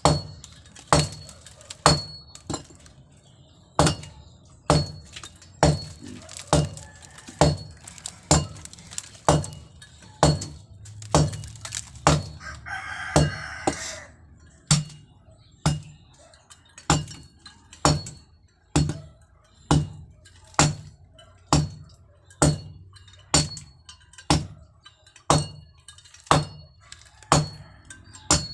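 Hammer blows at a steady pace of about one a second, each with a short metallic ring, during hand work on a concrete drainage repair. A rooster crows once about halfway through.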